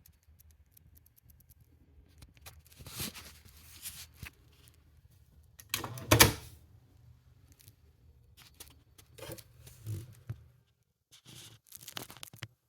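Clicks and knocks from a Technics RS-B11W double cassette deck being handled: buttons, cassette doors and the casing. The sharpest and loudest click comes about six seconds in, and a low hum underneath stops about ten and a half seconds in.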